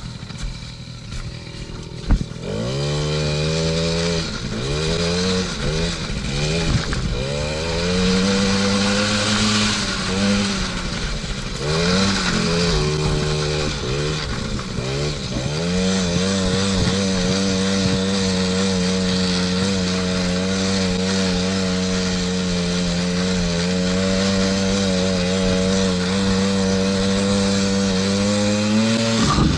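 A 50cc two-stroke ATV engine revs up and down over and over as the quad is ridden, then holds a steady high speed for the second half. There is a sharp knock just before the engine is first heard, about two seconds in.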